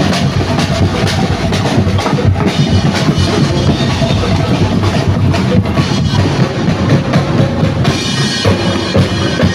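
Loud music with a steady drum-kit beat.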